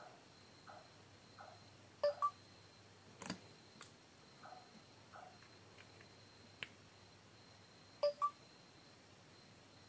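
Short two-note electronic beeps from a Vivo Y91 smartphone, heard three times as a quick pair, with a few sharp clicks in between: the charging notification sounding while the phone's LCD stays dark.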